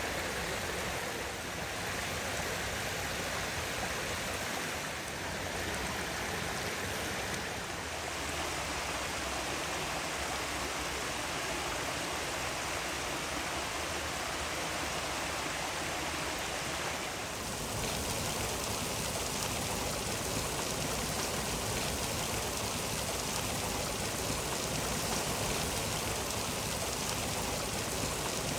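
Running water of a stream or small waterfall, a steady rush. About two-thirds of the way in it switches abruptly to a brighter, hissier water sound.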